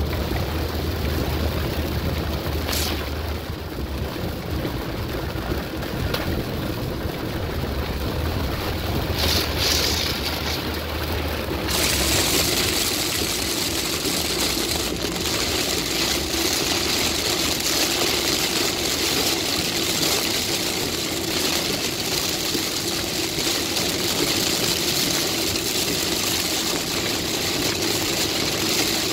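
Heavy rain and road spray hitting a car's windshield and roof, heard inside the cabin over steady engine and tyre noise. About twelve seconds in the rain turns much heavier: a loud hiss rises sharply and holds, and the low engine hum drops away under it.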